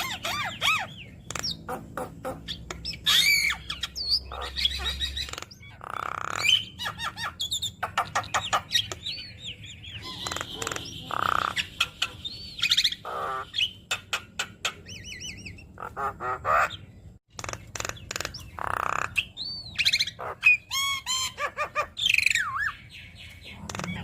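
Javan myna singing a long, varied song of harsh squawks, rapid clicks and rising and falling whistles, packed with mimicked phrases, with a brief break about two-thirds of the way through.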